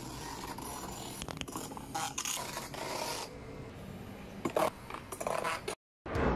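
Battery-powered motorized fishing lure thrashing against a clear plastic tub, a scratchy, rasping scraping with irregular louder strokes. It cuts off suddenly near the end, followed by a brief loud burst of noise.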